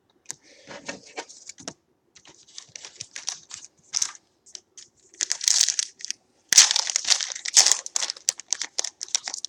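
Trading card pack wrapper crinkling and tearing as a pack is opened, in quick crackling rustles that grow loudest in two spells over the second half.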